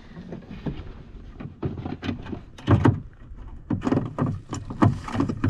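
Irregular knocks and thumps against a canoe's hull, several of them sharp and loud, over a low steady rumble.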